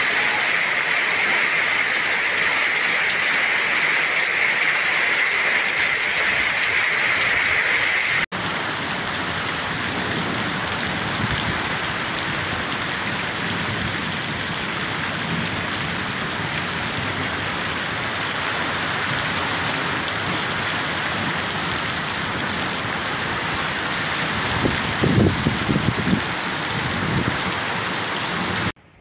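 Heavy rain pouring steadily, with runoff streaming off the roof edge. The sound changes abruptly about eight seconds in, then carries on as steady rain with a few louder low thumps near the end.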